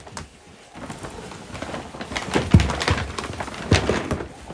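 Paper gift bags and their contents being rustled and handled, with a few sharp knocks and thuds. The loudest comes about two and a half seconds in and another near the end.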